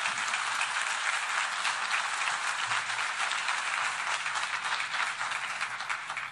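Audience applauding: many people clapping steadily, thinning out near the end.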